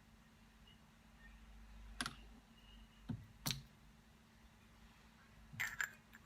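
A few sharp clicks and knocks of hard objects being handled: three separate knocks, then a short rattling cluster near the end.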